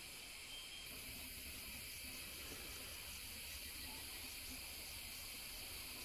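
Faint, steady, high-pitched chorus of insects such as crickets or cicadas in jungle, with a low rumble underneath.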